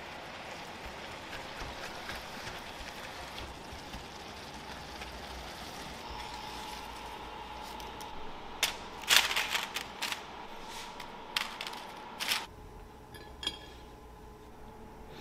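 Ground beef and onion sizzling in a cast-iron pot while stirred with a spatula. After about nine seconds, a run of sharp clicks and scrapes as a spatula knocks and scrapes against a frying pan, with a few lighter ticks later.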